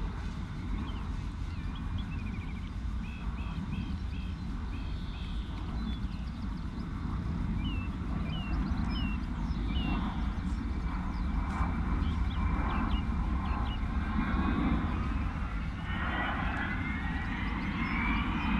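Avro Vulcan's four Olympus jet engines heard as a low distant rumble that slowly grows louder, with a high whine rising in pitch over the last few seconds as the bomber powers round toward the crowd.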